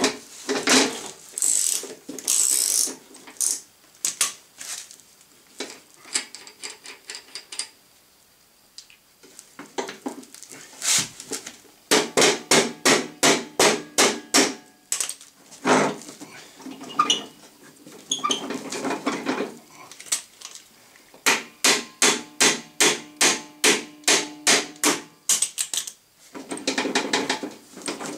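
Metal hand tool working the hub of a lawn mower's rear drive wheel: runs of quick, sharp metallic clicks, several a second, with a faint ringing, broken by short pauses and a quieter stretch about eight seconds in.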